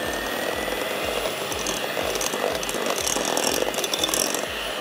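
Electric hand mixer running steadily, its beaters whipping cream cheese, icing sugar and cream in a glass bowl.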